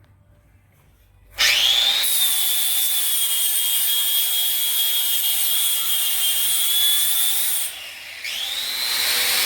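Bosch 1375A 4-1/2-inch, 6-amp angle grinder starting up about a second and a half in and grinding, a loud steady grinding noise over a high whine. Near the end it drops off for a moment and then bites in again, the whine rising back up.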